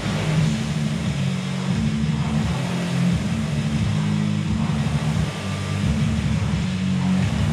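An engine running steadily, its low drone shifting up and down in pitch every so often as the engine speed changes.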